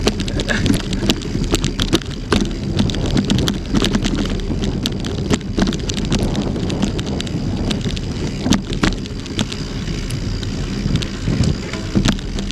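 Mountain bike ridden over a loose, rocky trail: tyres crunching on stones and the bike rattling, with frequent sharp knocks. Wind rumbles on the microphone throughout.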